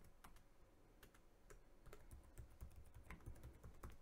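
Faint typing on a computer keyboard: scattered, irregular key clicks.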